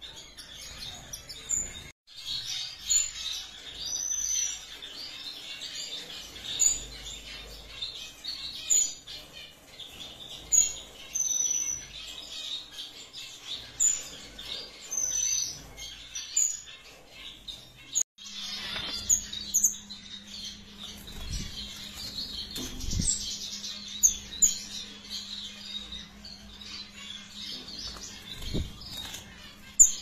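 Small caged aviary birds, finches among them, chirping and twittering in many short high calls. About two-thirds of the way in a steady low hum starts, and a few dull thuds sound.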